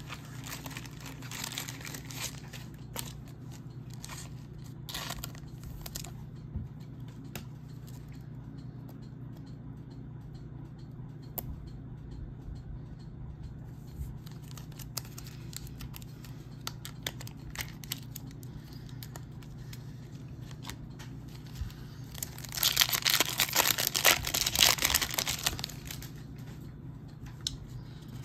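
Plastic foil wrapper of a trading-card pack crinkling and being torn open. The tearing is loudest for about three seconds near the end, over a steady low hum.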